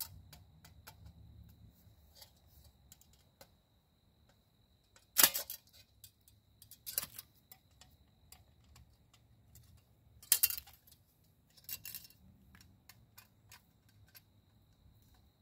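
Metal parts of a sheet-metal camp wood stove clicking and clinking as the door and screws are handled during assembly, with a few louder clanks about five, seven, ten and twelve seconds in.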